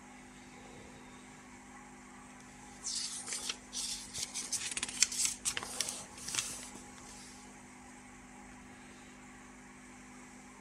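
Paper rustling and crinkling as a page of an old instruction booklet is handled and turned, lasting a few seconds from about three seconds in. A steady low hum runs underneath.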